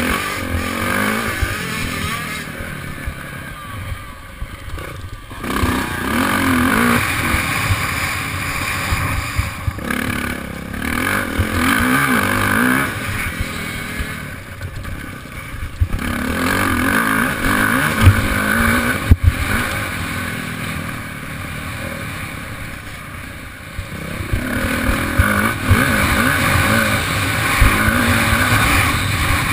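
Yamaha dirt bike engine heard on board, revving up through the gears in several long pulls and dropping off between them as the rider rolls off for corners, with a couple of sharp knocks from bumps in the middle.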